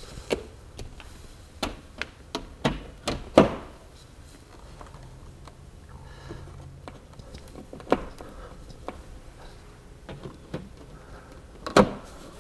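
Scattered clicks, knocks and taps from handling an in-wall speaker as it is seated in its wall opening and its grille is pressed on. There is one sharp knock a little past three seconds and another near the end, as the grille goes onto the speaker.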